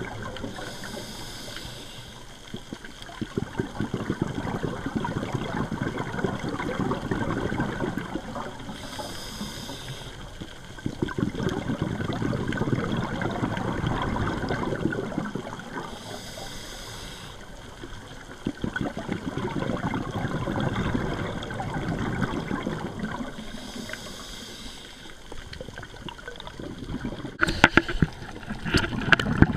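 A scuba diver breathing through a regulator, heard underwater through a camera housing: a short hiss of inhalation about every seven to eight seconds, each followed by a longer gurgling rush of exhaled bubbles. A few sharp clicks come near the end.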